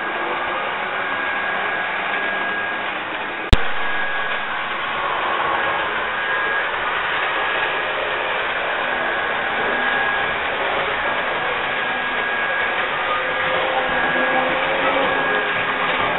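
Steady electric whirring of an H0 model train cleaning set running on the layout: a track-vacuum car and a rail-grinding car pulled by a Primex diesel model locomotive. A faint high whine comes and goes, and there is a single sharp click about three and a half seconds in.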